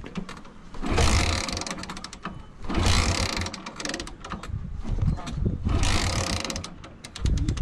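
Motorcycle that fails to start, cranked three times in short bursts of rapid mechanical clicking and whirring.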